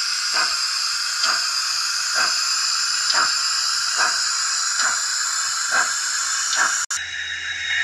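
Steam-locomotive sound from the Hornby Castle model's fitted sound unit: slow, even exhaust chuffs, about one a second, over a steady hiss of steam. Near the end it cuts off abruptly and gives way to a quieter sound with a low hum.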